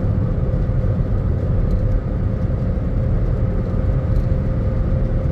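Steady road noise inside a car cruising at highway speed: a continuous low tyre and engine rumble with a faint steady hum above it.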